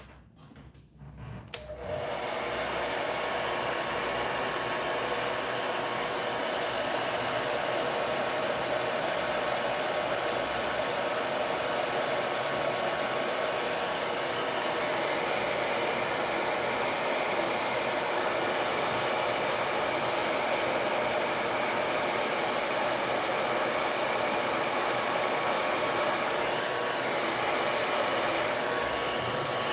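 Hair dryer switched on about two seconds in and blowing steadily, drying fresh paint on a painted plaque.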